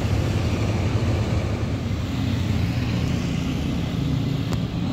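Diesel engine of a Sinar Jaya intercity coach running as the bus drives by: a steady low engine drone with road noise.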